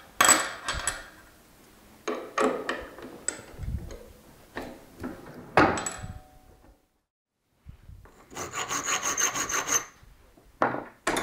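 Brass barb fitting being handled and worked in a machine vise: sharp metal clicks and knocks. After a brief break comes a quick run of evenly spaced rasping strokes, about a second and a half long, with more knocks near the end.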